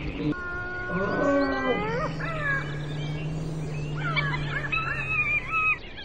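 Animal calls: several overlapping whistled calls gliding up and down over a steady low drone, stopping shortly before the end.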